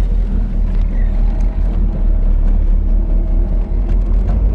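1999 Chevrolet Camaro's LS1 5.7-litre V8 running at light throttle while driving, heard from inside the cabin as a steady low drone mixed with road noise.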